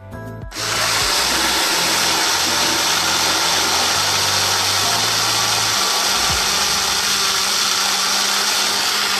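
A juice-making appliance's electric motor, switched on about half a second in and running steadily and loudly.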